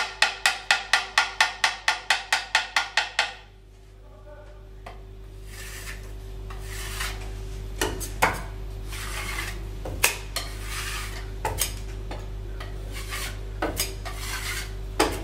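Rapid, evenly spaced knocks on an upturned polycarbonate praline mould, about four a second, shaking out the excess tempered chocolate so that only a thin shell stays in each cavity; they stop about three seconds in. After a short pause, a metal scraper rasps across the top of the mould in repeated strokes, with a few light clicks, clearing off the surplus chocolate.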